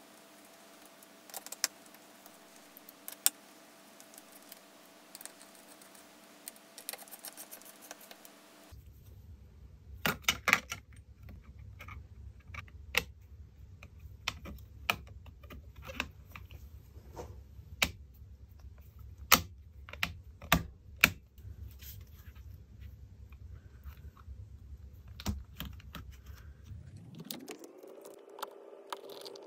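Small sharp clicks and taps of a precision screwdriver and loose metal and plastic parts handled inside an open laptop. Scattered clicks come over a faint steady hum at first, then louder, more frequent clicks over a low hum. Near the end a tone rises and then holds.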